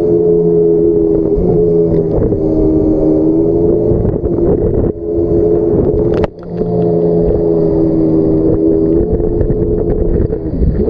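Yamaha jet ski engine running at a steady high speed, with a brief drop in level about six seconds in before it picks up again.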